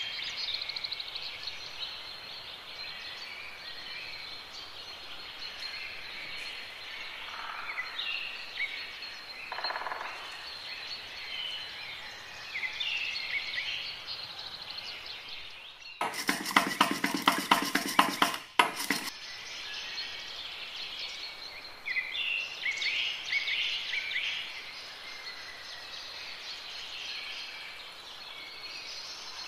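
Birds chirp faintly in the background throughout. A little over halfway through, a fork beats eggs against a glass bowl in a rapid clicking burst of about two and a half seconds.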